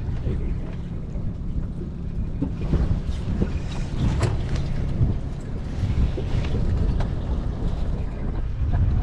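Wind rumbling steadily on the microphone aboard a boat, with a few scattered clicks and knocks.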